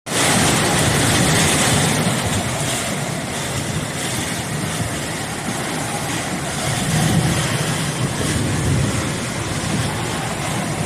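Torrential rain pouring down in a severe storm, with gusting wind: a dense, steady hiss.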